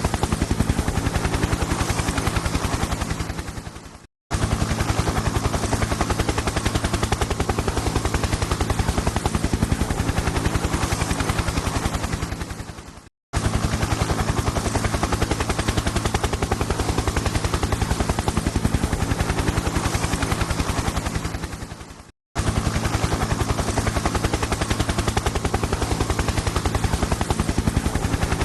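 Helicopter rotor chop: a fast, even beat of blade slaps over a steady low engine hum. It fades out and breaks off three times, each time starting again abruptly at full loudness, as a looped sound effect.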